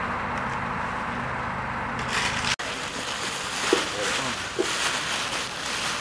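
A steady low hum and hiss, then, after a cut about two and a half seconds in, black plastic garbage bags rustling and crinkling as litter is stuffed into them, with a couple of short voice sounds.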